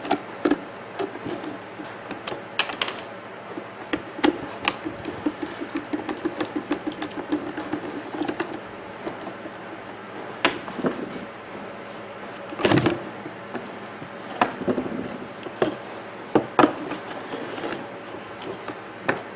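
Screwdriver work and handling of a coffee maker's plastic housing as screws are backed out: scattered clicks and knocks, with a run of quick ticks a few seconds in and a few louder knocks later on.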